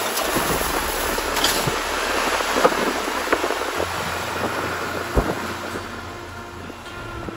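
Tyre noise and wind rumble from a camera mounted beside the front wheel of a four-wheel drive driving on a dirt track, with scattered clicks of gravel and stones. It gets somewhat quieter near the end.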